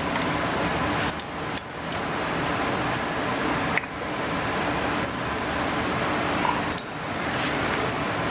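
Light metallic clinks from a hand screwdriver and small bolts being worked at a motorcycle's front fender mounts, a few times, over a steady background hiss.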